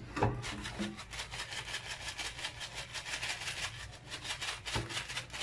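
Whole black peppercorns shaken out of a plastic bag, pattering onto a raw chicken and into a plastic basin as a rapid run of small ticks, with the bag crinkling. A couple of soft knocks come in the first second.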